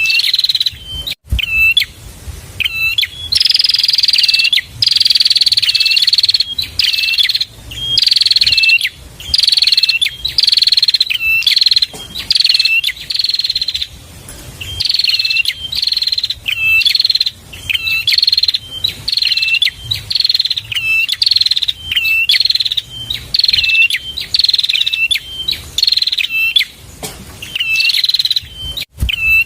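Prenjak (prinia) song: loud, high chirping phrases repeated about once a second, each falling slightly in pitch and ending in a short hooked note, in a fast continuous series.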